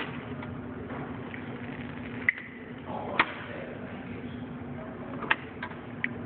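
Static from a payphone handset's earpiece: a steady hum and hiss with no dial tone, broken by a few sharp clicks.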